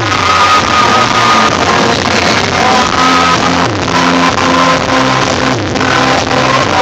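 Rock band playing loud live on stage, with drums, bass, guitars and keyboards and a voice singing over them, heard from within the audience.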